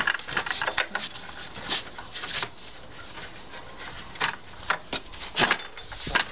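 Scattered knocks, clicks and scraping of wood and metal as a stop is set against the frame of a homemade circular-saw table to keep it from sliding.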